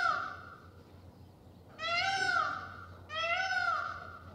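Indian peacock calling: calls about a second long that rise and then fall in pitch. One trails off at the start, and two more follow close together in the second half.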